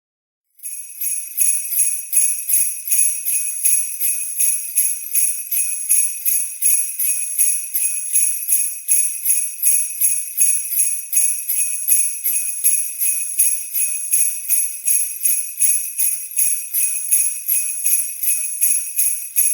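Sleigh bells jingling, shaken in a steady, even rhythm. They start about half a second in.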